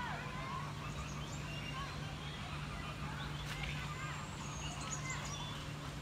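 Many birds calling at once: short chirps and thin gliding whistles come and go over a steady low hum.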